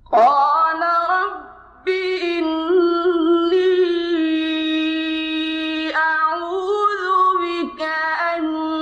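Quran recitation in the melodic mujawwad style: a single high male voice chanting in long, ornamented held notes. It starts right after a pause, breaks briefly near a second and a half, then holds one long note from about two to six seconds in before moving on through shorter phrases.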